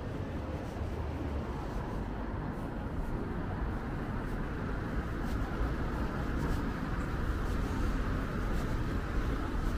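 City street ambience: steady road-traffic noise with a low, uneven rumble as cars drive past.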